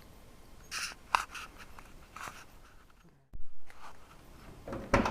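A few scattered soft clicks and rustles of handling, with a short dull knock about three seconds in.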